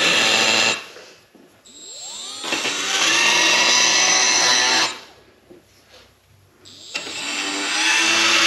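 Cordless rotary tool with a burr bit grinding around a seized brake-pad pin in the brake caliper to chamfer it. A high-pitched whine in three runs, cutting out twice, spinning back up with a rising pitch after each stop.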